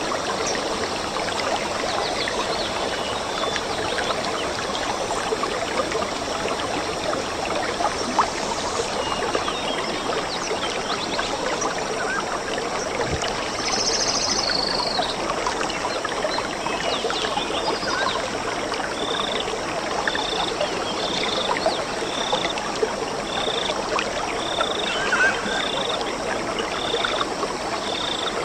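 A stream running steadily. A short high animal call repeats about once a second through the last third, with another brief call about halfway through.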